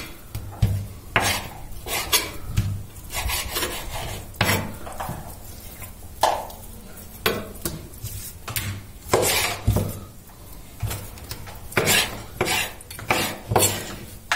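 Kitchen knife cutting raw chicken breast into small cubes on a wooden cutting board: irregular knocks of the blade on the board, with soft slicing and handling between strokes.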